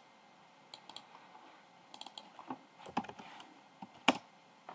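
Computer mouse clicks and a few keyboard keystrokes, scattered and irregular, with the sharpest click about four seconds in.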